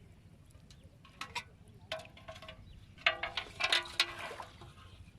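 Several sharp clinks, each ringing briefly with a chime-like tone, a few scattered early and a louder cluster about three to four seconds in.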